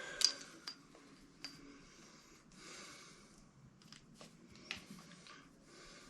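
Handling sounds as a charging cord is fitted to a metal detector's charge port: a sharp plastic click shortly after the start, a few fainter clicks and soft rustling of the cable.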